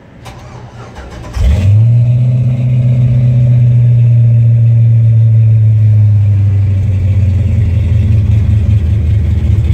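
The C10's LS-based V8 is cranked by the starter and catches about a second and a half in. It flares briefly, then settles into a loud, steady idle, heard from inside the cab.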